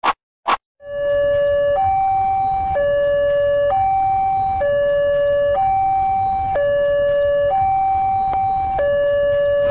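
Two short tones, then a level-crossing warning alarm: an electronic two-tone hi-lo signal switching between a lower and a higher pitch about once a second.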